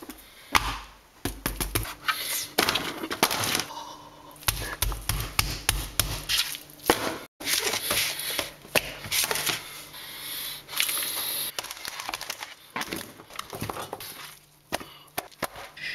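Vegetables handled by hand in a plastic bowl and on a counter: irregular knocks, clatters and crackling rustles as eggplant slices and other produce are grabbed and piled.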